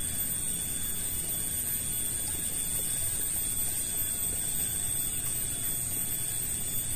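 Steady outdoor ambience by a shallow, slow-flowing ditch: a low, even rush of water with a steady high hiss over it, and no sudden sounds.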